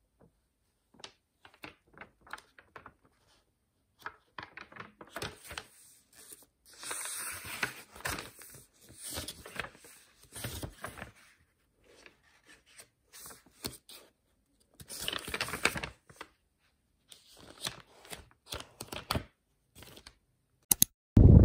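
Pages of a paper planner being turned by hand: scattered papery flicks and rustles, with a longer rustle of several pages a few seconds in and again about two-thirds of the way through.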